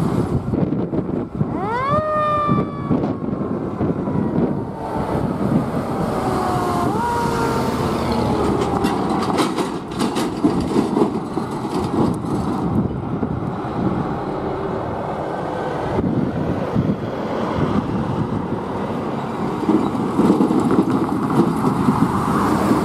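Fire engine's mechanical siren winding up sharply about two seconds in, then coasting down slowly in pitch. It gets a brief second wind-up about seven seconds in, then fades. Under it runs the steady rumble of the fire engine and passing traffic.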